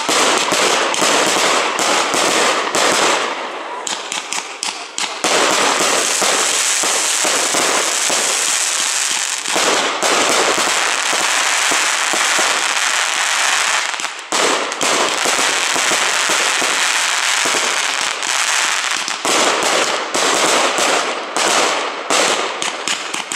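Aerial fireworks display: shells bursting overhead in rapid bangs and crackles, thickening into a dense, continuous crackle for several seconds in the middle before breaking back into separate bangs.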